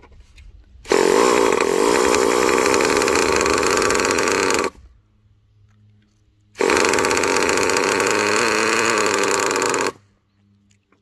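Small engine of a fuel-powered RC monster truck being cranked in two long runs of about four and three seconds, with a short pause between. It does not catch and run.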